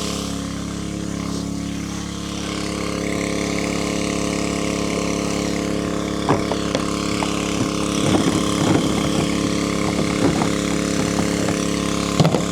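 Small gasoline engine of a portable water pump running steadily while it pumps water into a tank. Irregular clicks and knocks join in from about halfway through.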